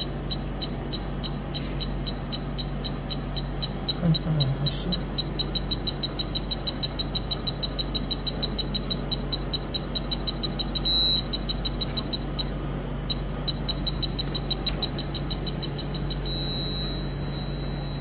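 Woodpecker Endo Radar's built-in apex locator beeping as the file advances down the root canal: a high beep that repeats faster and faster, merges briefly into one solid tone about eleven seconds in, and after a short pause beeps again. Near the end it becomes one continuous tone, the apex alarm that the file tip has reached the apex.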